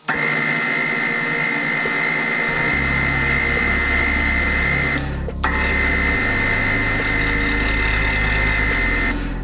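Electric motor of a homemade roller bender running with a steady whine, driving its belt and gear reducer. It cuts out briefly about five seconds in and then runs again.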